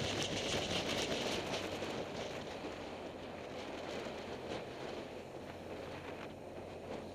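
Wind rush and a steady low engine hum from a vehicle riding along a mountain road, with scattered light clicks and buffeting. The rush eases somewhat after the first couple of seconds as the vehicle slows.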